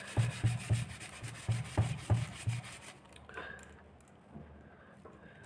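Sandpaper, cloth side down, rubbed briskly back and forth over a hot electric iron's soleplate, scrubbing off melted tablet residue and burnt-on grime. About three scrubbing strokes a second for roughly three seconds, then the rubbing goes much quieter.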